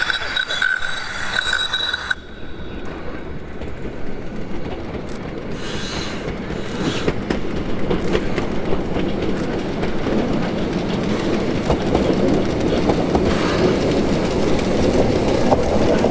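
Steam railcar approaching along the track, its running noise and wheels on the rails growing steadily louder as it nears. A high whistling tone sounds at the start and cuts off suddenly about two seconds in.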